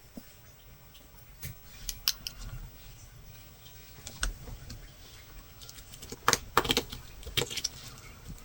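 Metal latch hook tool clicking and scraping as yarn is hooked through rug canvas: scattered light clicks, then a quicker run of louder clicks near the end.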